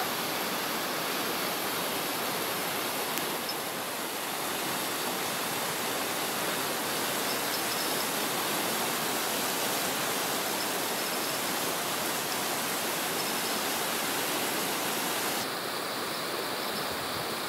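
Steady rushing of a fast-flowing river current, an even hiss with no breaks.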